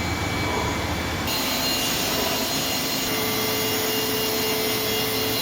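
Studer S36 CNC grinder running, with the steady hiss of its grinding wheel and spindle. The sound turns suddenly brighter about a second in, and a steady tone joins it just past the middle.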